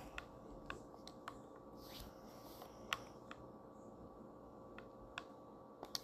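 Faint drawing sounds: about ten light, irregular clicks and taps of a pen or stylus on the drawing surface, with a soft scratchy stroke around two seconds in, over a faint steady hum.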